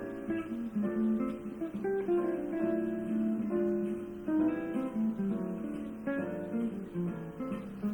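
Background music: acoustic guitar playing a string of plucked and strummed notes.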